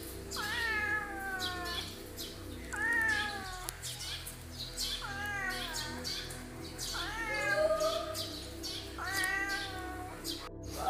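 Domestic cat meowing five times, about every two seconds, each meow rising and then sliding down in pitch.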